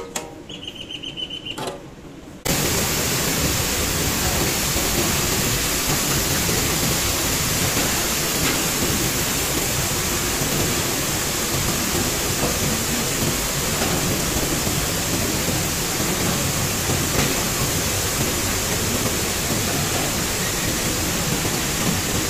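A few clicks and a short high squeak as wheat is raked over a metal intake grate; then, about two and a half seconds in, the loud steady noise of flour mill machinery running starts suddenly.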